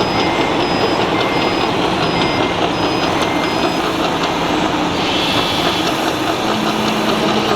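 Reversing beeper of a scale RC truck's sound module, sounding short high beeps about every 0.7 seconds, stopping about four seconds in. Beneath it runs a steady din of a busy hall full of people.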